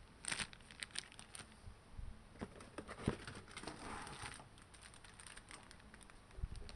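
Clear plastic bags crinkling as bagged accessories are handled and lifted out of a cardboard box, with scattered light crackles and taps and a longer rustle about four seconds in.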